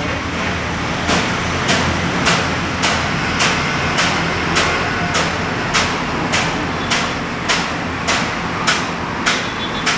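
Steady, evenly spaced knocking, about three sharp strokes every two seconds, over a low background rumble.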